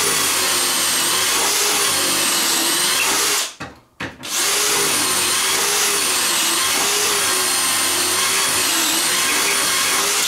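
Drill boring pocket holes in wood, the motor running steadily under load with its pitch wavering slightly. It stops a little over three seconds in and starts again about half a second later.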